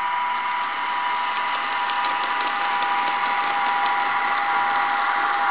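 HO-scale model diesel locomotives running on DCC across a double-crossover turnout: a steady electric motor whine, with faint clicks as the wheels pass over the crossover's rail gaps.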